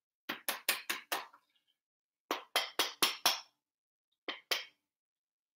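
Hard taps on an electric coffee grinder, knocking the freshly ground coffee loose. They come in three quick runs: five taps, five more, then two.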